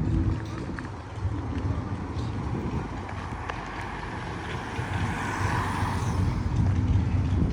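Street traffic with a low rumble throughout. A passing vehicle's tyre noise swells and fades about five to six seconds in.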